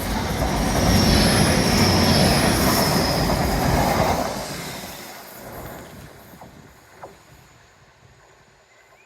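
Train passing close by: a loud rumble with high, thin wheel squeal over it for the first four seconds, then fading away as it goes off into the distance.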